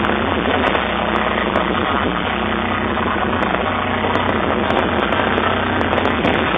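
Fireworks barrage going off close by: a continuous dense rumble of bangs and crackle, with many sharp pops scattered through it.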